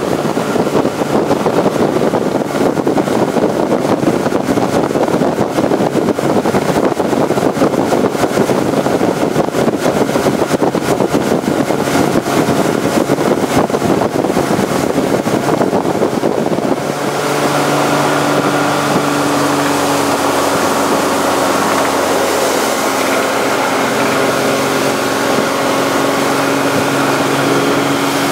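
Motorboat running at speed while towing a tube, with wind buffeting the microphone and water rushing in the wake. About two-thirds of the way through, the rushing noise drops and the engine's steady hum comes through clearly.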